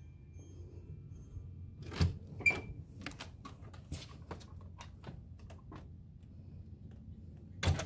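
Glass door being unlatched and opened: a couple of sharp knocks and clicks about two seconds in, a scatter of lighter ticks and taps, then two more sharp clicks near the end.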